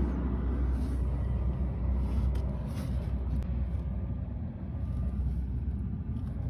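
Rooftop gas heating unit running with its blower on: a steady low rumble.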